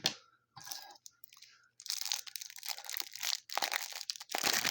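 Packaging of a trading card hanger box being torn open by hand: crinkling wrapper and tearing, crunching cardboard in a run of quick rustles that grow busier after a quiet start and are loudest near the end.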